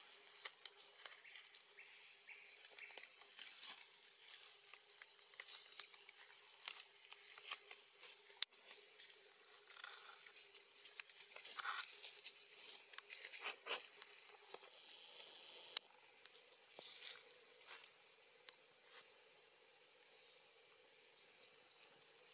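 Faint natural outdoor ambience: a steady high hum runs throughout, with scattered short, high chirps sliding downward and light rustling in dry leaf litter. Two sharp clicks stand out, about a third of the way in and again past the middle.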